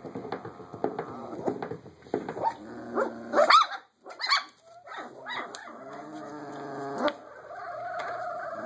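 Young Belgian Malinois puppies whining and yelping in repeated pitched cries, with one loud rising yelp about three and a half seconds in and a longer held whine near the end.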